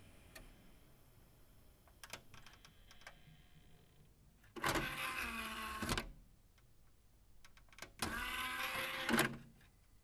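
CD/DVD/Blu-ray player's disc tray motor running twice, each time for about a second and a half, a steady mechanical whine with a click where it starts and stops: the tray sliding out and back in. A few faint clicks of the mechanism come before it.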